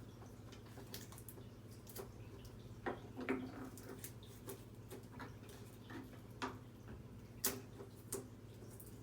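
Irregular light clicks and taps of small plastic parts being handled, about ten in all, the sharpest about three seconds in and again near the end, over a steady low hum.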